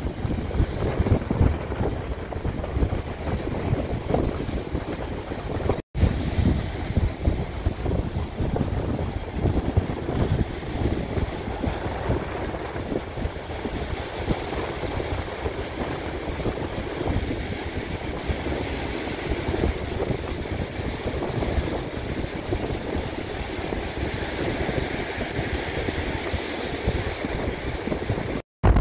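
Strong gusty wind buffeting the microphone, with surf breaking on the beach behind it.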